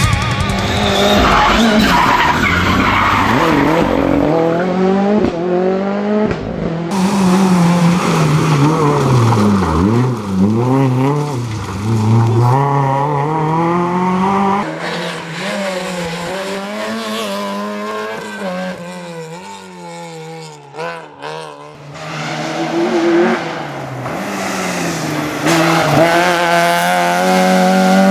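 Rally car engines revving hard, the pitch climbing and dropping again and again with gear changes and lifts as cars pass one after another. The sound fades down briefly about two-thirds of the way through, then builds back up near the end.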